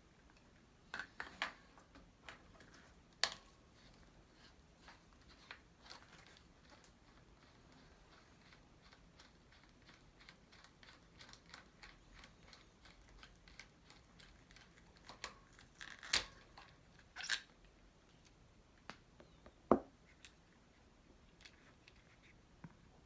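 Scattered light clicks, taps and short rustles of hands working on small bicycle parts at a bench, with a few sharper clicks about two-thirds of the way in and a duller knock soon after.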